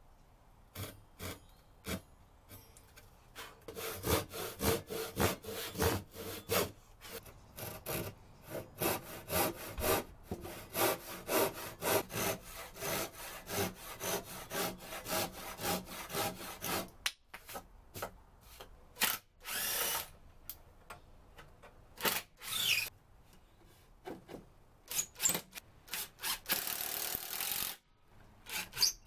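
A fine-toothed hand saw cutting through a wooden board in steady back-and-forth strokes, about two a second. For the last third, a cordless drill drives screws into wood in several short runs.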